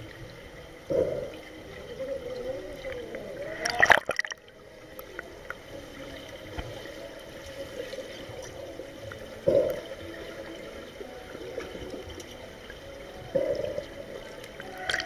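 Swimming-pool water heard underwater: a muffled, steady gurgling and bubbling, with sudden bubble bursts about a second in, just before four seconds (the loudest, cut off abruptly), around nine and a half seconds and near the end, from snorkelers breathing out and moving in the water.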